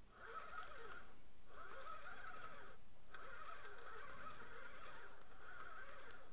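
A flock of geese honking, a steady chorus of calls that breaks off briefly now and then.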